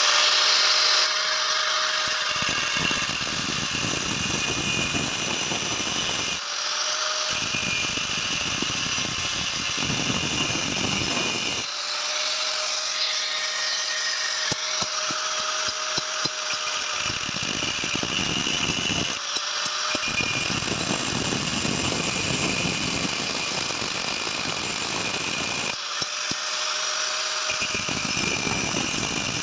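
Angle grinder with an abrasive cutting disc running throughout, cutting into a forged metal spear head. It switches back and forth about five times between a steady whine when spinning free and a harsher grinding noise when the disc is pressed into the metal.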